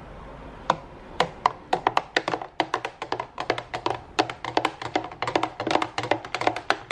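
A spoon stirring fresh juice in a plastic juicer jug, tapping and clinking against the jug's sides in quick, uneven strikes, several a second, starting about a second in.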